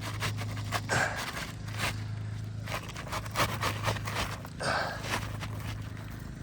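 Asphalt shingle being scraped and pushed into place under the course above, with rasping scrapes about a second in and again near five seconds, and scattered clicks and taps, over a steady low hum.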